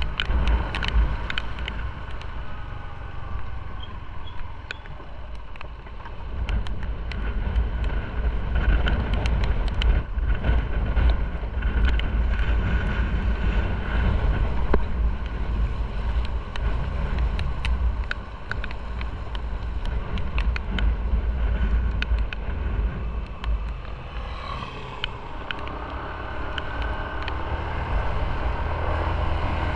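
Motorcycle riding on wet city streets: low engine rumble with wind buffeting the microphone and tyre noise, its loudness rising and falling as the bike speeds up and slows, with scattered short ticks of raindrops.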